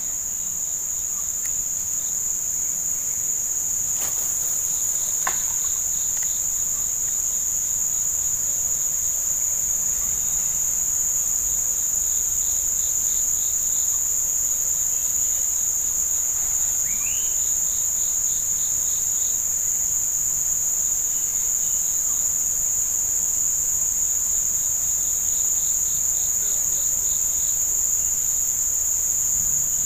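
A steady high-pitched insect chorus from the surrounding forest, two shrill constant tones. A few times, short runs of rapid pulsed chirps from another insect cut in and stop again.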